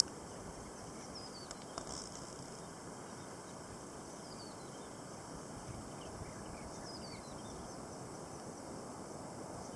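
Outdoor ambience: a steady background hiss, with a bird's short falling call repeated every few seconds.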